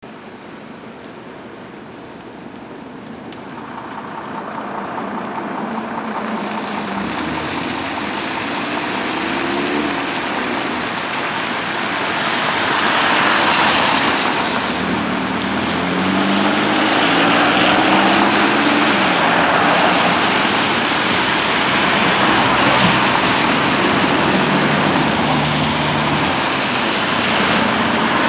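Road traffic: cars and SUVs passing close by one after another on a wet street, tyre hiss swelling with each pass, with engine notes rising and falling now and then.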